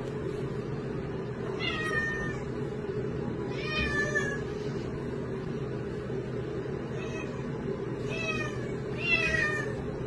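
A domestic cat meowing about four times, each call drawn out and bending in pitch, over a steady low hum.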